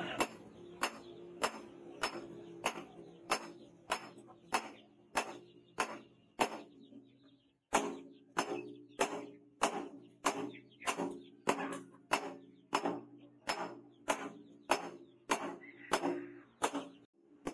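Background music with a steady ticking beat, a little over one and a half beats a second, over low sustained tones, breaking off briefly about seven seconds in.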